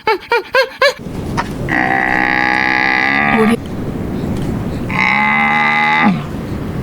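A cow mooing twice, two long calls of about a second and a half each that drop in pitch at the end. A quick run of short repeated calls is heard in the first second.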